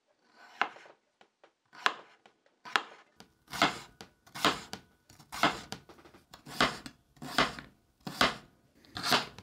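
Santoku knife push-cutting slices of Korean radish on a wooden cutting board, about ten strokes roughly one a second, more regular from about three seconds in. Each stroke is pushed through to the end so the edge keeps running along the board, the way of cutting that dulls and damages the blade tip.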